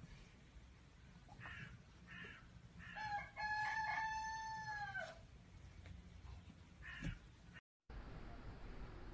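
A rooster crowing once, a long held call that drops in pitch at its end, with a few short calls before it.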